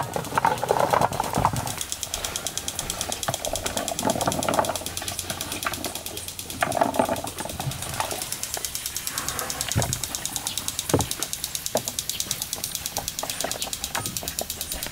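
Hands tossing and spreading cut apple slices on an aluminium tray and a wooden board: soft scraping rustles in short bursts near the start and again about four and seven seconds in, with scattered sharp taps of slices landing later on. Underneath runs a fast, even pulsing hiss.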